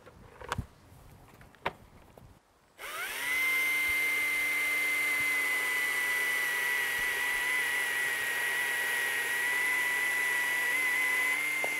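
STIHL cordless chainsaw powering up about three seconds in with a quick rising whine, then running at a steady high-pitched electric whine as it cuts through a log, stopping abruptly near the end. A few faint clicks come before it starts.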